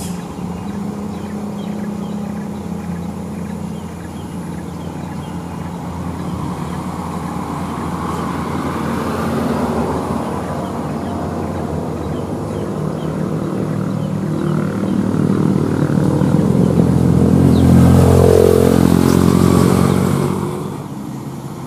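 Road traffic climbing a hairpin bend: a diesel cargo truck's engine working steadily, joined by other engines including motorcycles. The sound grows louder to a close pass about seventeen to twenty seconds in, where an engine's pitch dips and rises again, then drops away near the end.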